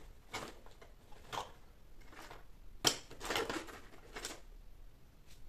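Small objects in a drawer being rummaged through by hand: scattered rustles and light clicks and clatters, the sharpest click about three seconds in, followed by a short spell of rustling.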